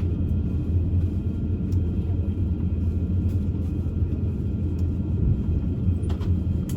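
Steady low rumble inside the cabin of an Airbus A350-1000 airliner, from its engines and airframe, with a few faint clicks near the end.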